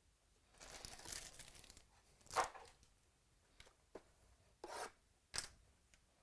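Trading-card packaging being torn open and cards handled: about a second of rustling tearing, then a sharp snap, and two short rustles near the end.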